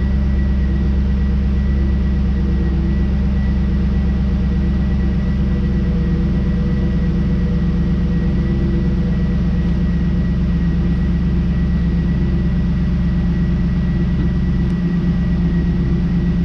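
2002 Pontiac Trans Am WS6's LS1 V8 idling steadily in first gear with the clutch pedal held down, a test for a failing clutch master cylinder that slowly lets the clutch re-engage.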